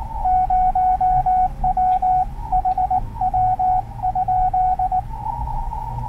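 Morse code sent on a small two-lever paddle key, heard as the radio's sidetone: a single steady beep keyed in quick dits and dahs for about five seconds. The receiver's narrow-filtered hiss comes back near the end.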